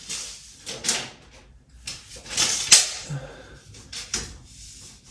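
Handling noises: a few short scrapes and knocks, the loudest about two and a half seconds in, as a tape measure is held up and read against the ceiling.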